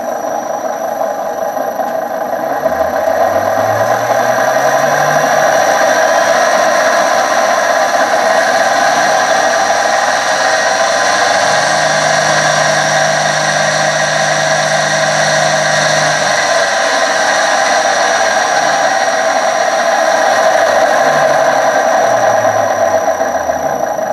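1966 Hitachi 1.5 hp three-phase lathe motor run up on a VFD, running with a loud groan from its bearings, which the owner believes are shot, with a flat spot. Its low hum rises in pitch over the first few seconds as the motor spins up, holds steady, and falls again near the end as it slows.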